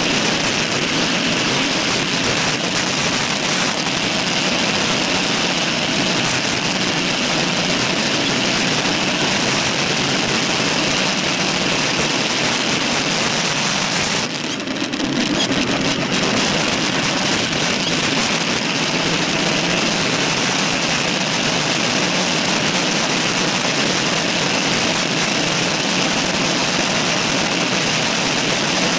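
Steady rush of wind over the microphone of a camera mounted on a bicycle riding at speed, dipping briefly about halfway through.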